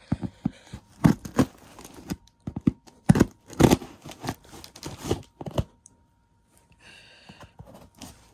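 A cardboard shipping box being torn and pried open by hand: irregular knocks, scrapes and tearing, which stop about two-thirds of the way through.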